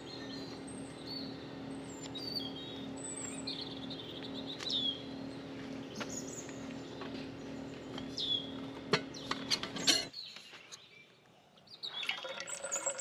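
Small birds chirping with short high calls over a steady low hum, with a few sharp clicks about nine seconds in. The hum stops abruptly about ten seconds in, leaving quieter chirping.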